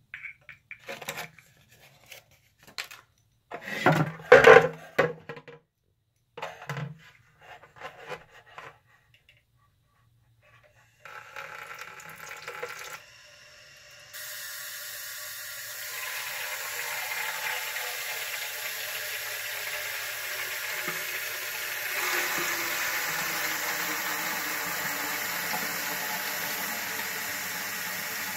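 A few handling knocks and clicks, then tap water running steadily into a Crane ultrasonic humidifier's water tank as it is filled, starting about halfway through and growing a little louder.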